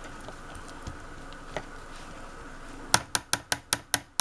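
Quick run of about seven sharp taps, some five a second, of a utensil knocked against the strainer or measuring cup while straining cooked elderberries, over a faint steady hum.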